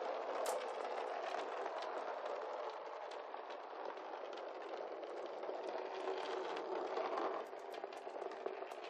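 Many marbles rolling and clattering together on a hard surface: a dense, continuous rattle with scattered sharp clicks, which thins out to fewer, separate clicks about seven seconds in.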